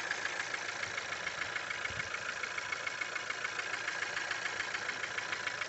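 Skoda Octavia A7 1.4 turbo engine idling with a fast, even rattling tick: a knock the owner cannot locate.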